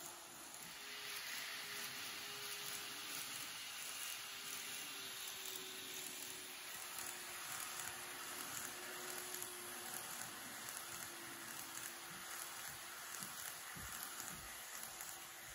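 583 series model train running along its track: a steady rolling hiss with a faint motor hum that wavers slightly in pitch, and a few low thumps near the end.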